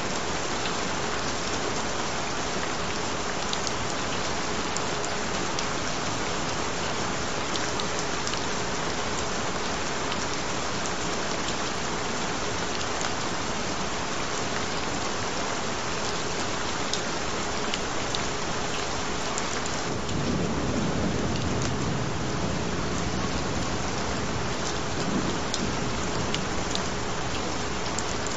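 Steady rain falling, with a low rumble of thunder rolling in about two-thirds of the way through. A steady tone sits underneath the rain.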